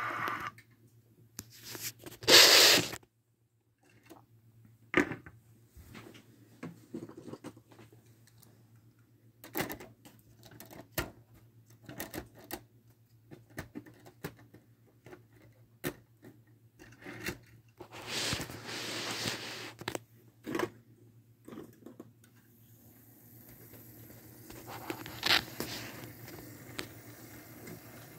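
Scattered light clicks and a few brief rustles, the loudest about two seconds in. Then, over the last few seconds, a model train's motor and wheels running along the track grow steadily louder as it approaches.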